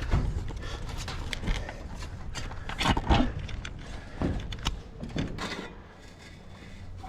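Irregular knocks and clanks from sheet steel and clamps being handled, with a few short warbling wobbles of flexing sheet metal. The busiest stretch is about three seconds in, and it quietens near the end.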